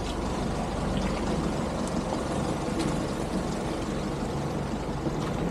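A motor vehicle driving along a road, with steady engine and road noise and a few faint knocks.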